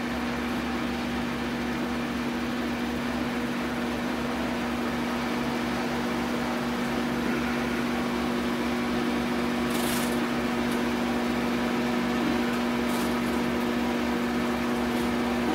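Steady machine hum, like a running fan, with a constant low tone. Two brief high rasps about ten and thirteen seconds in fit masking tape being pulled off the roll.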